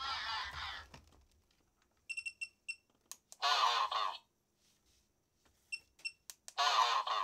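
Electronic singing plush toys run from a bench power supply at only about 2–2.5 volts, their sound chip starved of voltage: three short distorted, squawking bursts of sound about a second each, with a few short high beeps between them.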